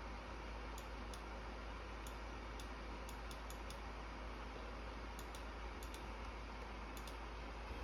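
Faint, irregular clicks from working a computer's input devices, about a dozen scattered through, over a steady background hiss and low hum.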